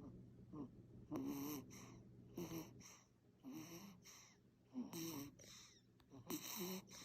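Infant snoring in sleep: a steady series of quick, noisy breaths, about one every second or so, each with a wavering pitched tone.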